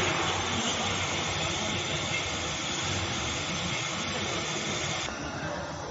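Steady hiss and hum of an enclosed fiber laser marking machine running; the higher hiss cuts off suddenly about five seconds in.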